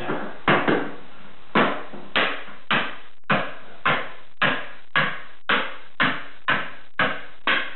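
Wooden beating block knocked repeatedly against thin glass ribbon tiles, about two sharp knocks a second, beating the tiles into their bed of Laticrete 4237-mixed sanded grout.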